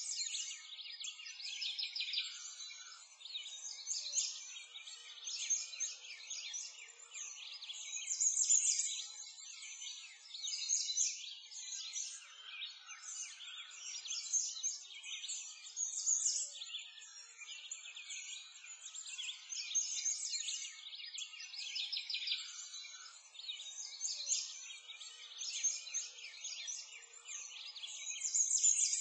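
Many small birds chirping and twittering at once, a dense high-pitched chorus that goes on throughout without a break.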